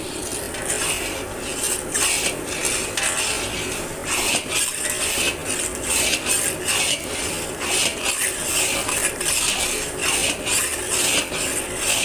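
Flat metal spatula scraping and stirring a crumbly milk mawa mixture around a black metal karahi, in quick repeated scrapes about two to three a second.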